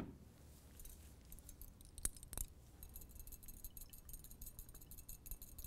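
Glass test tube clinking in a wire test-tube holder as it is agitated to dissolve a salt: two sharp clinks about two seconds in, then a quick rattle of fine clinks for a couple of seconds.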